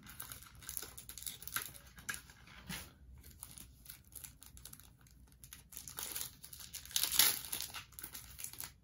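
Yu-Gi-Oh booster pack's foil wrapper crinkling and tearing as it is opened by hand, in irregular rustles with a louder burst near the end.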